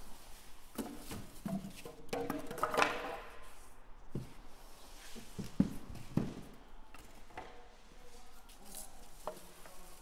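A large cardboard box sleeve being lifted off and handled: cardboard scraping and rubbing, loudest a few seconds in, with several short knocks as the packaging and corner protectors are pulled away and put down.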